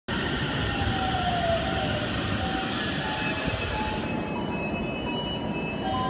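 Aichi Loop Railway electric commuter train pulling into the station and slowing, with steady running noise and thin high squeals from the brakes and wheels. One squeal glides downward about a second in, and several steady squealing tones come in over the second half.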